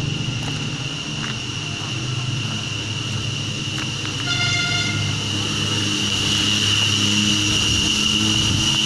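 A steady high-pitched drone over a low hum, with one short horn toot about four and a half seconds in.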